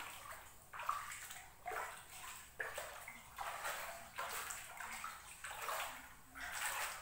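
Footsteps wading through shallow floodwater, a sloshing splash with each step about once a second.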